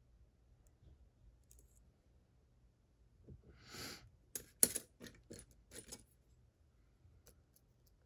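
Metal lock-picking tools clinking against keys and tools on a cluttered bench as one tool is set down and another picked up. A short rustle comes near the middle, then half a dozen sharp clicks over about two seconds, the loudest among the first.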